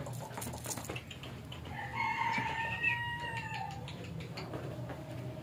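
Afghan shepherd-dog puppy giving one long whine of about two seconds, dipping in pitch at the end, after a few sharp taps in the first second.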